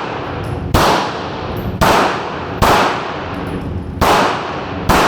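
Smith & Wesson Shield Plus pistol firing five shots at an uneven pace, roughly one a second with a longer pause before the fourth, each shot ringing out briefly.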